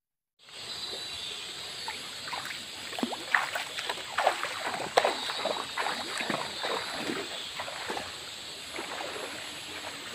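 Shallow river water running over stones, with irregular splashing of a person wading through it, busiest between about two and seven seconds in. The sound starts about half a second in.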